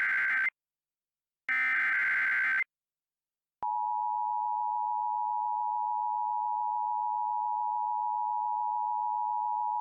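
Emergency Alert System SAME header data bursts: the end of one chirping digital burst, then a second full burst about a second later. About three and a half seconds in, the steady two-tone EAS attention signal begins, announcing a new alert message.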